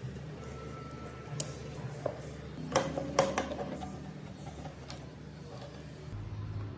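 A few sharp clicks and knocks over a steady low hum, the loudest two or three coming close together about three seconds in.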